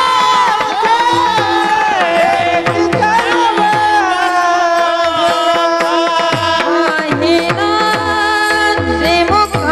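Marathi devotional singing: a man's high voice holds long, ornamented notes over steady instrumental accompaniment. Tabla strokes recur throughout, their bass notes sliding down in pitch.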